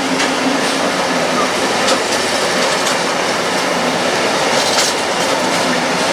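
Wagons of an intermodal freight train rolling through the station: a steady noise of wheels on rails with occasional clacks.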